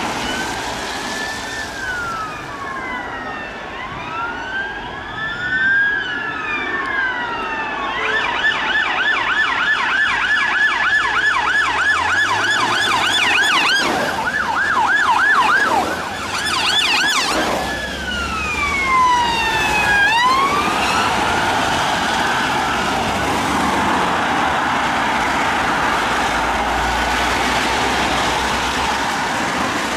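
Several police car sirens sounding together, overlapping slow rising-and-falling wails that switch to a rapid yelp about a quarter of the way in, then back to wails, over traffic noise.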